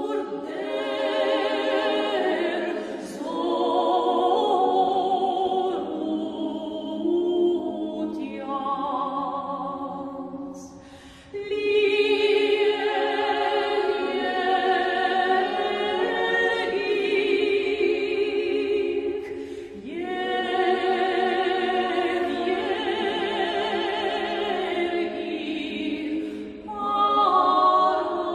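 A choir singing a slow hymn, several voices holding long notes together, with short breaks between phrases; the deepest break comes about ten seconds in.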